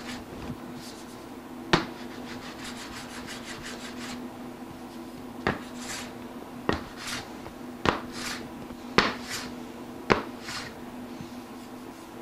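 Wooden-bodied hand plane working over a wooden panel, trimming a dried epoxy fill flush. Six sharp knocks as the plane comes down on the board, each with a short scraping hiss of the blade taking a shaving.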